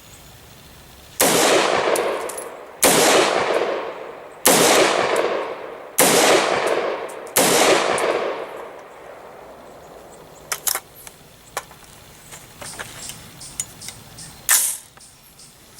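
Five gunshots from an AR-15 pistol, about a second and a half apart, each followed by a long rolling echo. Later come a few fainter sharp cracks and one louder crack near the end.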